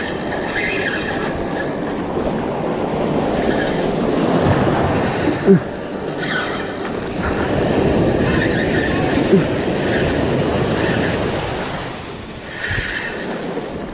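Surf breaking and washing up the beach in a steady rush. A short squeak sounds about five and a half seconds in and another near nine and a half.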